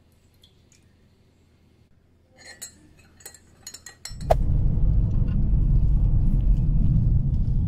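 A metal spoon stirring in a glass mug, clinking sharply against the glass several times. About four seconds in, a car's steady low rumble, heard from inside the cabin, takes over as the loudest sound.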